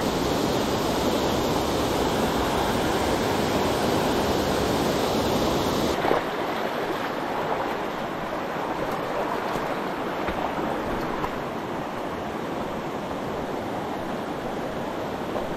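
Mountain stream rushing steadily, an even wash of water noise; it drops a little in level and loses some of its hiss about six seconds in.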